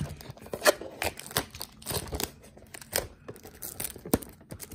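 Plastic shrink wrap being torn and crinkled off a cardboard trading-card blaster box: a run of irregular sharp crackles.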